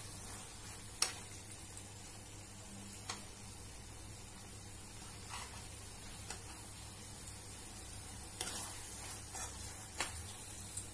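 A metal spoon stirring thick spinach gravy with paneer cubes in a nonstick pan, tapping and scraping against the pan several times. Underneath is a steady low sizzle of the gravy simmering on a low gas flame.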